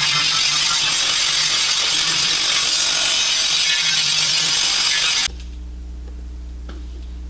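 A metalworking tool running continuously with a harsh, hissing noise, cutting off abruptly about five seconds in, after which a low steady hum remains.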